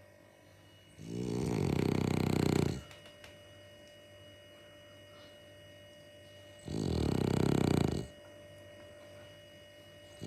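Bulldog snoring: two loud snores, each a second or two long and about five seconds apart, with quiet breathing between them.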